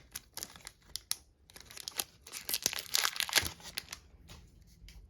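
Foil wrapper of a Pokémon card booster pack crinkling as it is handled, a string of crisp crackles that is loudest and thickest about halfway through.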